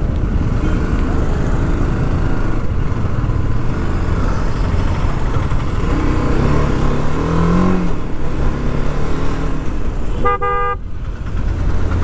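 Road traffic in a jam: a steady rumble of running engines. A little past the middle one engine's pitch rises as it revs, and about ten seconds in a vehicle horn gives a short blast.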